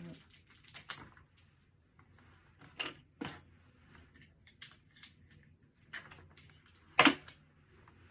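Hands working with tape and gift-basket items: scattered short rustles and clicks, the loudest a sharp one about seven seconds in.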